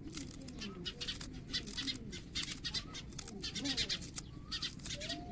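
Irregular crisp snips and crunches of a small knife cutting through fresh coriander stems and leaves, with birds cooing in the background.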